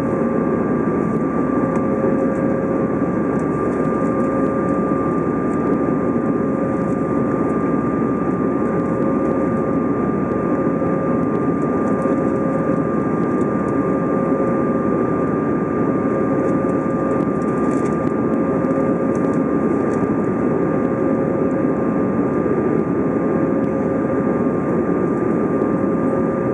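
Steady cabin roar of an Airbus A320 in flight, engine and airflow noise heard from a window seat over the wing. A steady high whine runs through it, with a lower hum that pulses on and off every second or two.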